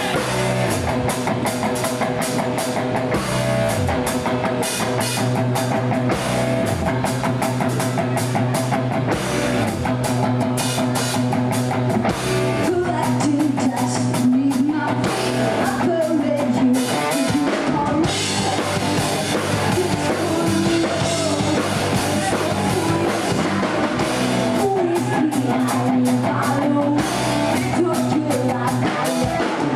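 Live rock band playing a song: drum kit and electric guitar, with a singer.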